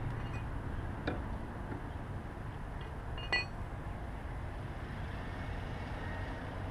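Steady outdoor background noise with two short metallic clinks, one about a second in and another just past three seconds in, from a mechanical car jack being worked to raise a car.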